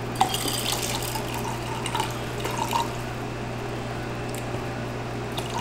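Strawberry juice poured from a plastic bottle into a metal cocktail shaker: a steady stream of liquid splashing into the tin.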